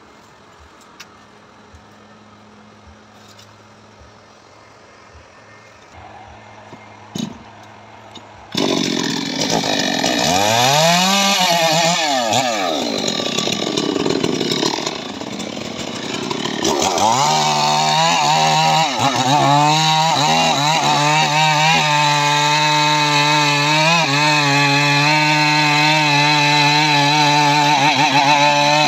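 Chainsaw: fairly quiet for the first eight seconds or so, then the saw comes in suddenly and loud, revving up and down for several seconds. From about seventeen seconds in it holds at steady high revs, cutting into the base of a tree trunk.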